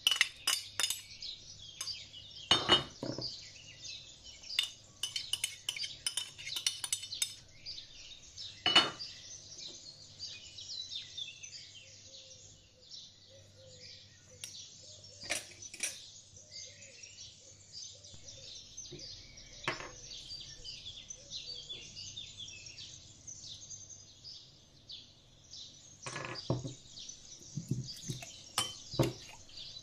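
A metal spoon clinking and scraping against a glass salad bowl and a ceramic dish in scattered taps, busiest at the start and near the end, as salad ingredients are spooned in and stirred. Birds chirp continuously in the background.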